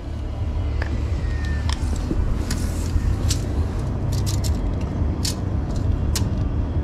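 Steady low rumble, with scattered light clicks and taps from a tape measure being handled over pine boards.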